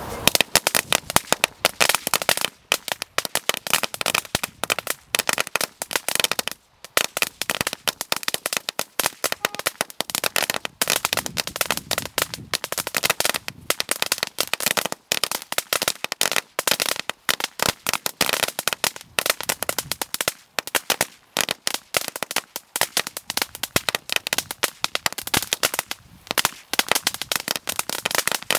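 Crackling Whip double firecracker string going off: a dense, rapid run of sharp bangs, many per second, with only brief gaps.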